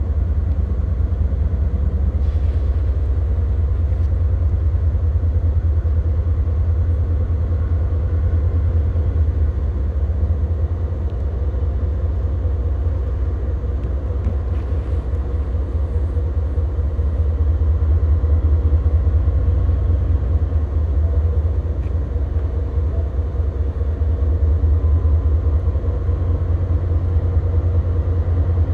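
Freight train's diesel locomotives rumbling steadily: a deep, even rumble with a faint steady hum above it.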